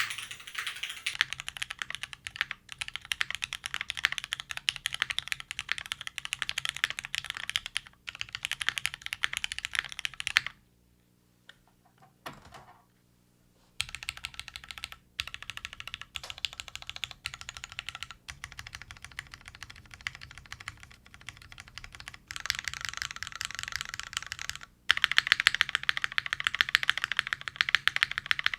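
Fast, continuous typing on a custom mechanical keyboard with lubed Cherry MX Black linear switches on an aluminium plate, gummy O-ring mounted, with GMK Firefly keycaps. The typing stops for about three seconds near the middle, then resumes and is louder near the end.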